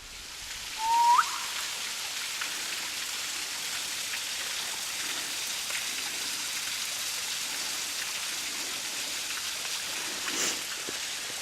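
Steady hiss of rain falling. About a second in, a short whistle-like note sweeps upward.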